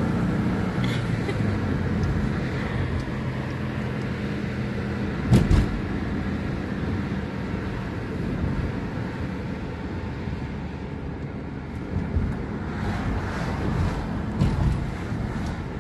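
Car driving, heard from inside the cabin: a steady low engine hum and road noise, with a few short thumps, the loudest about five seconds in.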